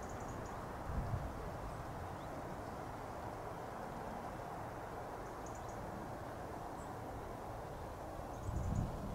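Distant Boeing Chinook tandem-rotor helicopter in flight, heard as a faint steady rumble. Wind buffets the microphone about a second in and again near the end, and small birds chirp briefly three times.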